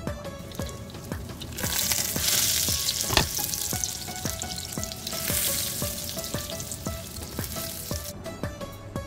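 Eggplant slices sizzling as they fry in hot oil in a pan, the sizzle starting about one and a half seconds in and dying back near the end, with a single sharp knock about three seconds in. Plucked-string background music plays throughout.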